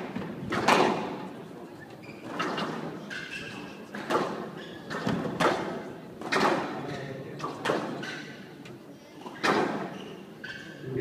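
Squash ball cracking off rackets and the walls in a fast rally, about one sharp knock a second with a short echo after each, and brief shoe squeaks on the court floor as the players lunge.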